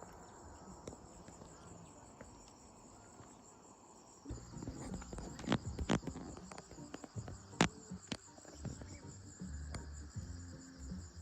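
Evening chorus of insects chirring steadily at a high pitch. From about four seconds in, a low rumble joins it, with a few sharp clicks.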